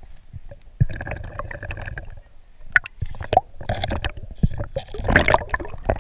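Muffled underwater sound of a river: gurgling and bubbling water with scattered sharp clicks and knocks against the camera, the loudest stretch near the end.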